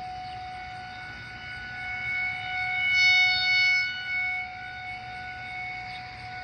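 Outdoor tornado warning siren sounding a steady, unwavering tone during a test, swelling to its loudest about three seconds in and then easing back.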